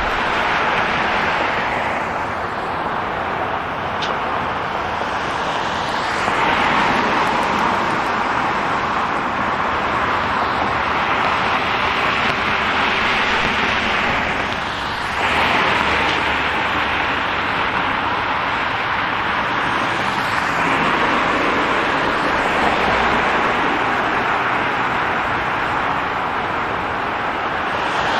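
City street traffic: cars passing on the road with a steady hiss of tyre noise, swelling as vehicles come close about six seconds in and again about halfway through.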